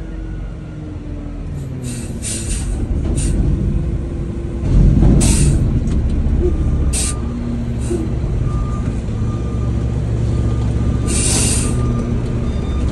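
Garbage truck's engine running, with several short hisses of air from the air brakes. The rumble grows louder about five seconds in.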